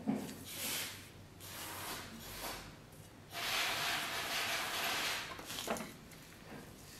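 A few rasping scraping strokes, a tool drawn by hand over a workpiece, the longest lasting about two seconds, with a couple of light knocks between them.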